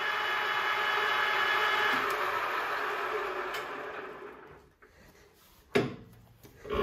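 Ferm FM760/300T metal lathe's geared headstock running with a steady whine, then spinning down to a stop about four seconds in. Two clunks follow as the headstock gear-selector lever is worked.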